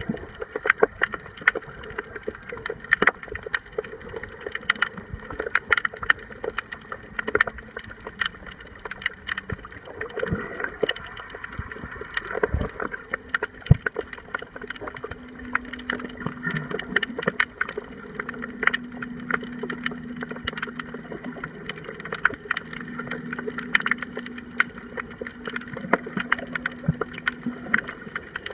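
Underwater sound picked up by a camera in shallow sea water: dense, irregular crackling and sharp clicks. A steady low hum comes in about halfway through.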